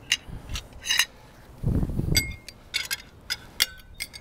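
Metal cutlery clinking and scraping against ceramic plates: a string of short, sharp clinks, some ringing briefly, with a dull low thump about two seconds in.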